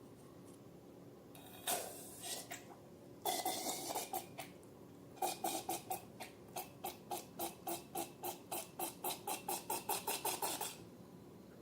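Slime being squeezed and worked by hand: a few sticky squelches, then a quick regular run of small wet clicking squishes, about four a second, for some five seconds.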